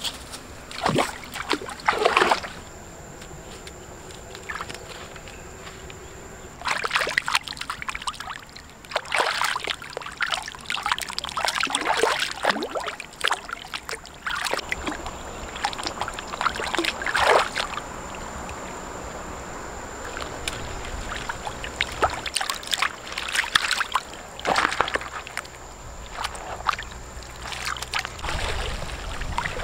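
River water splashing and sloshing in irregular bursts as a slab of pork is scrubbed and dunked by hand. Near the end, water pours and trickles through a woven bamboo basket as chillies are rinsed.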